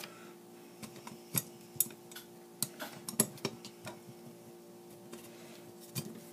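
Pliers clicking and scraping against the metal ring nut of a guitar-pedal potentiometer as it is worked loose: a handful of sharp, irregular clicks.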